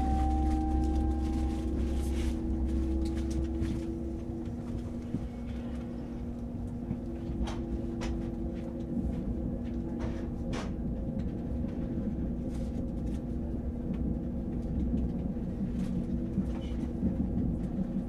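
Inside an ICE high-speed train running at low speed: a steady low rumble with humming tones from the drive, and a rising whine that fades out about a second in. The deepest rumble eases about four seconds in, and a few sharp clicks and knocks come near the middle.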